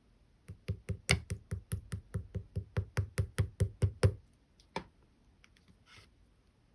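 Fingers tapping and poking a soft slime in a quick even run of about seventeen knocking pats, about five a second, followed by a single fainter click.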